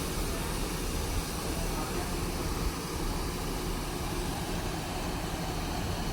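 Diesel engine of a coach bus idling with a steady low rumble.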